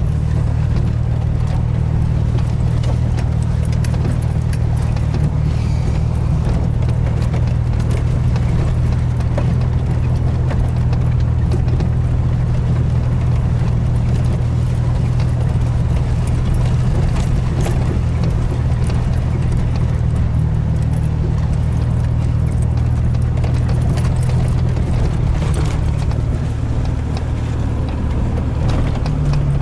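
Chevrolet S-10 Blazer's engine running with a steady low drone, heard from inside the cab as it drives a rough dirt trail, with short clicks and knocks from the truck jolting over the ruts.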